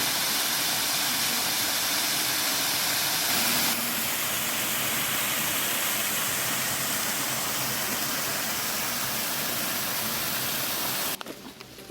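Steady rushing hiss of a valley stream's flowing water, cutting off suddenly near the end.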